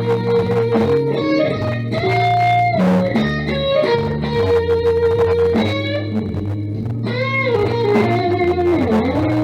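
Electric guitar music: long held notes over steady low bass notes, with several notes bent up and down in pitch in the second half.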